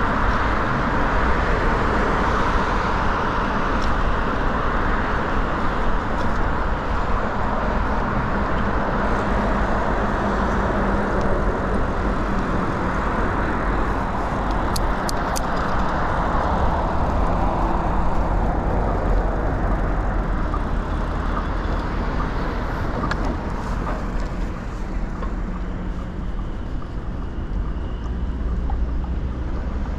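Steady road traffic heard from a moving bicycle, with wind rumbling on the microphone; the traffic is louder in the first half and eases off after about eighteen seconds.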